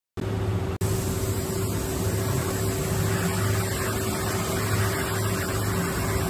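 Steady machine-shop hum from running machinery, with a constant mid-pitched tone over a low hum. It cuts in suddenly just after the start and drops out for an instant under a second in.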